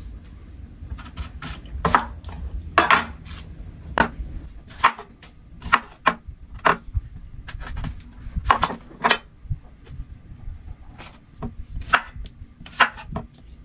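Kitchen knife cutting raw sweet potatoes on a wooden cutting board: irregular knocks of the blade striking the board, some in quick pairs.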